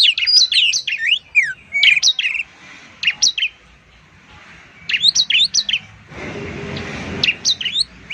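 Caged songbirds, green leafbird (cucak ijo) and bar-winged prinia (ciblek), singing in quick runs of sharp, high chirps and short downward-sweeping whistles, with a pause in the middle. About six seconds in, a brief hiss sounds under the song.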